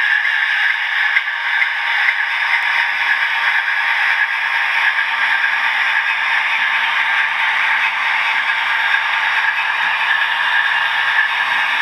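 A model railway train, a Class 60 diesel locomotive hauling coaches, rolling along the track: a steady hiss of small metal wheels on the rails with a faint low motor hum. Light regular clicks from rail joints come through in the first few seconds.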